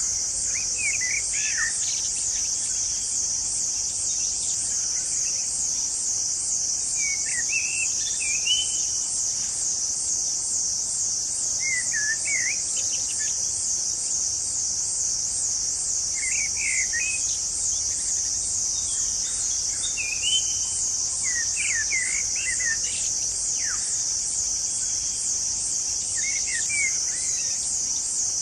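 Steady high insect chorus, like crickets, pulsing rapidly, with a bird's short chirping phrases repeating several times, every four seconds or so.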